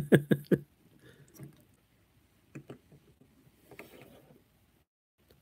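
Plastic action figures being handled and set down on a wooden tabletop: a quick cluster of sharp knocks at the start, then scattered lighter taps and clicks as the figures are moved.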